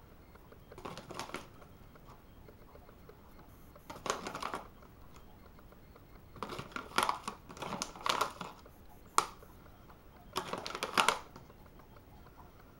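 Short bursts of rattling and rustling as protein pancake mix is handled and added to the cake batter ingredients, with a sharp click about nine seconds in.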